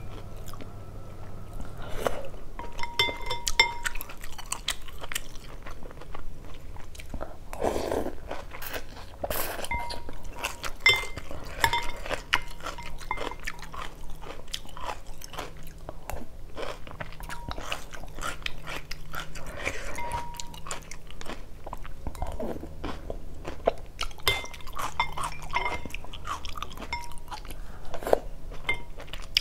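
Close-miked eating: a person biting and chewing a bowl of chicken-offal phở and noodles, many short wet chewing and mouth sounds in a quick irregular stream.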